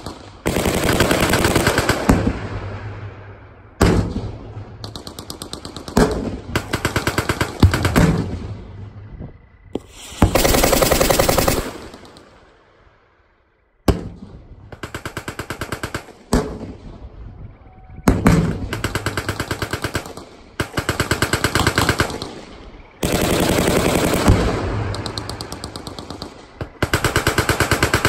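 Machine-gun fire: repeated bursts of rapid automatic fire, one after another, each trailing off in an echo, with a brief lull about halfway through.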